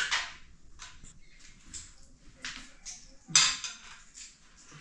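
A spoon scraping and clinking against a metal plate on a metal tray as food is scooped up, in scattered short strokes, the loudest a little past three seconds in.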